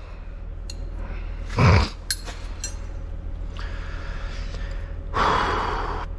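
A man breathing close to the microphone: a short sharp breath about two seconds in and a longer exhale near the end, with a few faint metal clinks of hand tools over a steady low hum.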